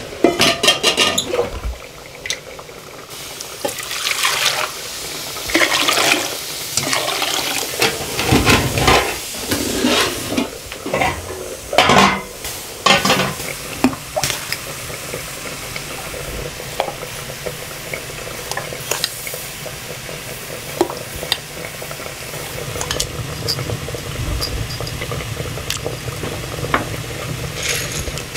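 Aluminium cooking pots and lids clanking and scraping, with water splashing into a pot, busiest in the first half. After that come quieter handling and small clicks as salt and whole spices go into the water for a brine.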